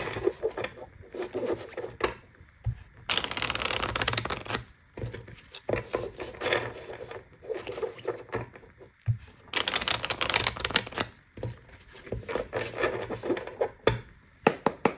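A deck of cards being shuffled by hand: several bursts of rapid flicking and riffling, the longest about three seconds in and again about ten seconds in, with a few sharp taps near the end.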